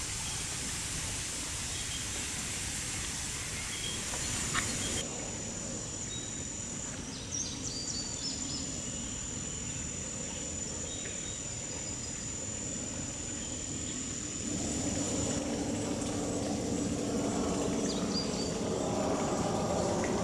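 Outdoor ambience: a steady hiss with a few short bird chirps and a thin, steady high insect drone. About two-thirds of the way in, the low hum of a distant engine rises and grows louder.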